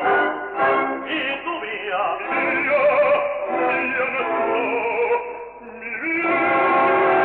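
Operatic singing: short sung phrases, then a brief drop about five and a half seconds in, followed by a long held note with vibrato. The recording is old and thin, with no treble.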